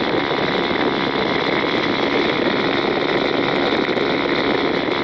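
SYM VF3i scooter's single-cylinder engine and exhaust running steadily while riding at speed, mixed with wind and road rush on a camera mounted low beside the exhaust.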